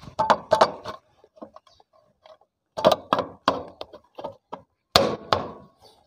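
Short knocks and clacks of the aluminium clutch cover on a Honda CD70 engine being pressed and knocked into place by hand, in three bunches: one at the start, one near the middle, one near the end.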